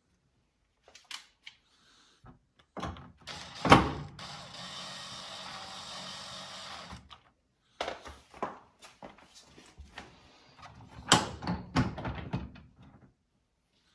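Clicks and knocks of the dryer's door and its plastic hinge parts being handled, with a sharp loud knock about four seconds in. A steady hiss follows the knock for about three seconds.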